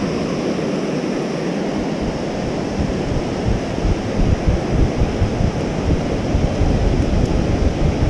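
Wind buffeting the microphone over the steady wash of surf, with low gusts setting in about two seconds in and coming and going.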